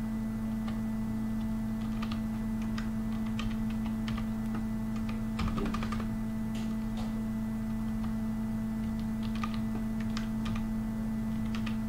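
Typing on a computer keyboard: irregular key clicks in scattered runs, over a steady electrical hum.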